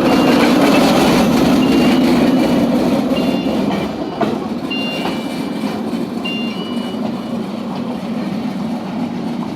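Rail-bike level-crossing warning signal beeping, a short high tone repeating about every one and a half seconds, over a steady low rumble that is loudest in the first few seconds and then eases.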